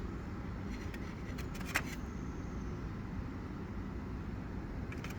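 Steady low background noise with a few light clicks, the sharpest nearly two seconds in, typical of small metal tools such as sockets being handled.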